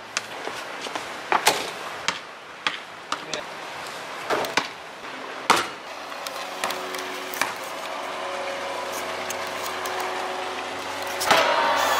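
Inflatable pool basketball bouncing on a concrete pool deck: a series of sharp, irregular smacks in the first half. A steady hum with several tones builds up in the second half and grows louder near the end.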